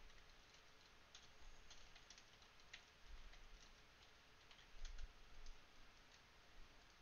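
Faint computer keyboard typing: scattered light key clicks in short runs, with a soft thump about five seconds in.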